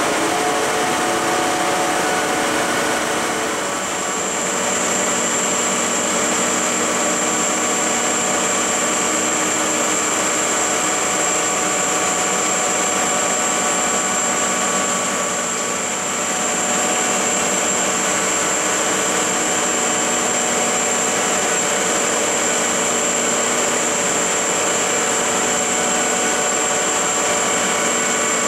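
1969 Lucas 441B-72 horizontal boring mill running under power: a steady mechanical whir from its 20 HP drive, with several held tones and a thin high whine over it.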